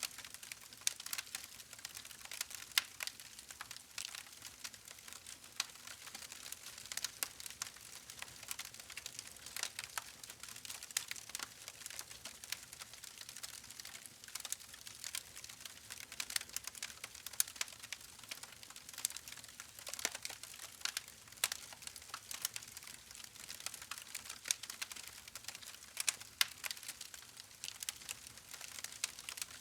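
Campfire crackling steadily, with dense, irregular sharp pops and snaps over a faint hiss.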